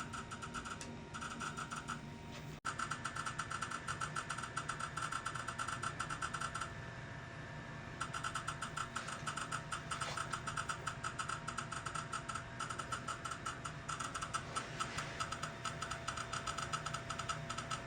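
Intraoral dental scanner running during a mouth scan: a steady, rapid pulsing buzz that pauses for about a second near the middle.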